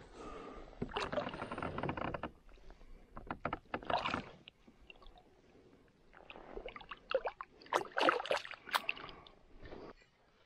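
Water splashing and sloshing beside a kayak, with scattered clicks and knocks, as a small musky is lowered into the water and released by hand. The splashing comes in uneven spells, busiest about two-thirds of the way through.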